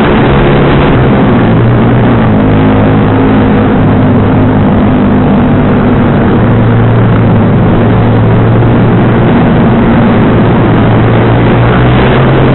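Sport motorcycle with an aftermarket racing exhaust running at riding speed, heard from the rider's seat. The engine note shifts a few times as the throttle is worked, over a steady rush of wind and road noise.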